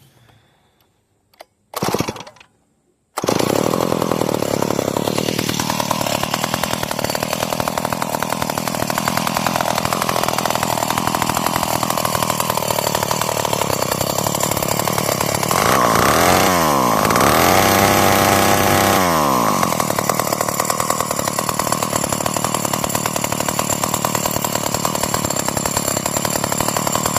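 1959 Mono-Line chainsaw's two-stroke engine, pull-started with a short burst about two seconds in, catching a second later and running steadily, revved up and back down around the middle. It runs now that its clogged reed valves have been cleaned.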